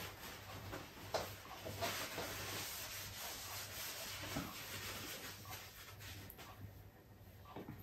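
Close-up eating sounds: a soft rasping rustle with small clicks from chewing and picking up garlic fried rice by hand, fading about six seconds in.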